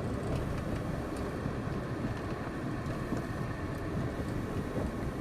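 Car driving: steady engine and road noise with a low rumble.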